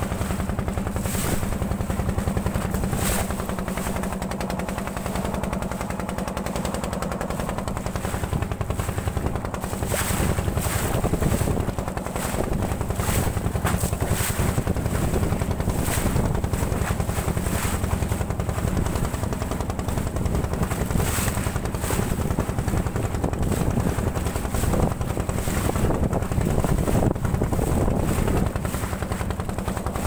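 Small wooden river boat's engine running steadily under way, with water rushing and splashing against the hull.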